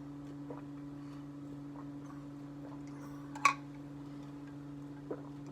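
Steady low hum in a small room, with scattered faint clicks and one sharp tap about three and a half seconds in.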